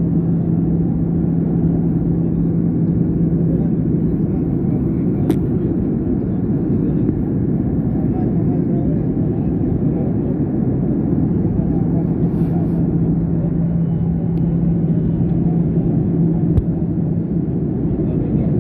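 Airliner cabin noise in cruise: a steady low rush of the jet engines and airflow, with a low hum that fades in and out.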